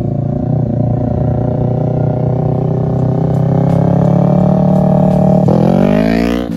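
2019 Yamaha R3's parallel-twin engine through an M4 Street Slayer slip-on exhaust with the dB killer removed, very loud, pulling steadily with the pitch creeping up as the bike rides toward the camera. About five and a half seconds in it revs up sharply as the bike passes close by.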